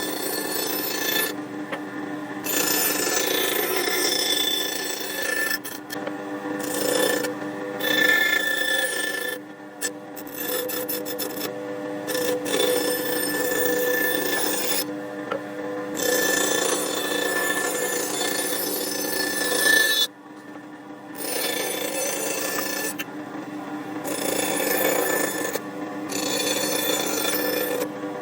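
Wood being rubbed or rasped by hand in repeated scraping strokes, broken by short pauses every few seconds.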